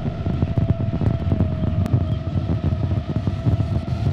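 FPV quadcopter drone in flight, its motors giving a steady high whine that wavers slightly in pitch, under heavy gusty wind buffeting on the microphone.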